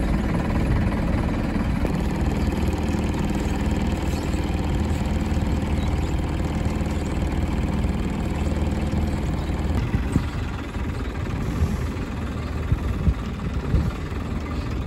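Boat diesel engine idling, a steady low drone that drops a little about ten seconds in.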